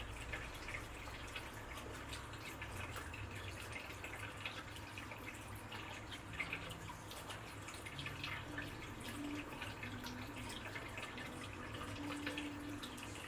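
Water dripping and trickling, a steady patter of many small drops, with a few brief low tones in the second half.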